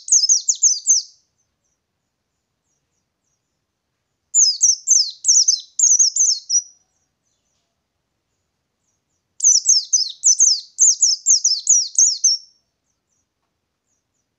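White-eye (pleci ngalas) singing in three rapid, chattering phrases of quick high notes, each phrase lasting two to three seconds with a few seconds' pause between them.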